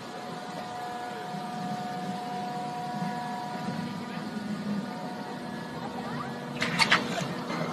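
A steady mechanical hum with several held tones, then a few sharp cracks near the end.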